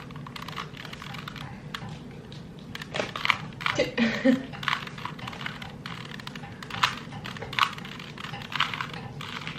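Rubik's Cube being twisted quickly by hand, its plastic layers clicking and clacking in irregular rapid turns.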